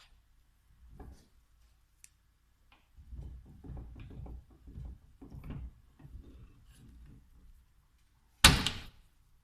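Parts of a VE diesel injection pump handled on a workbench: a few seconds of soft knocking and rubbing, then one sharp metallic clank with a short ring near the end.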